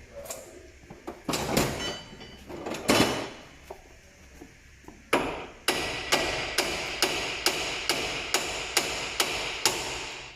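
Hammer striking the steel lower suspension arm: a few heavy blows, then from about five seconds in a regular run of strikes, roughly two a second, with a ringing metallic note between them, knocking the arm free under the pull-down tool's pressure.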